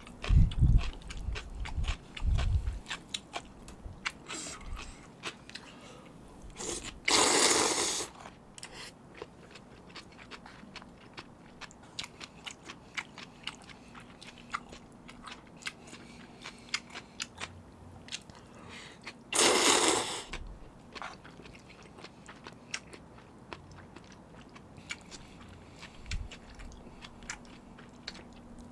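Close-miked chewing and mouth sounds of someone eating spicy seafood noodles (jjamppong), many small wet clicks throughout. Two loud noisy bursts about a second long stand out, about seven seconds in and about twenty seconds in.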